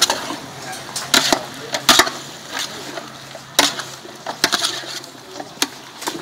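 Metal spoon scraping and clanking against the side of a large metal pot while vegetables and meat are stirred, in irregular strokes about once or twice a second.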